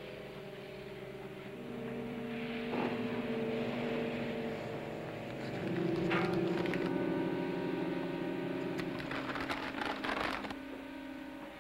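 Tense dramatic underscore of held low notes that shift pitch a couple of times, with rustling of paper documents being handled near the middle and again near the end.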